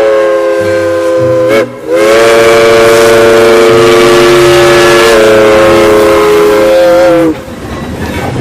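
A steam locomotive whistle blows a chord of several notes in two long blasts. The first breaks off about one and a half seconds in, and the second is held for about five seconds. A fainter hiss follows near the end.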